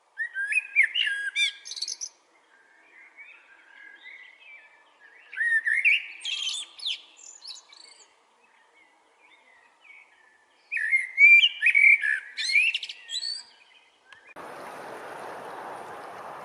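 A songbird singing three loud phrases of whistled, gliding notes with quick chatter, a few seconds apart, with softer calls in between. About fourteen seconds in, the song stops and a steady rushing noise takes over.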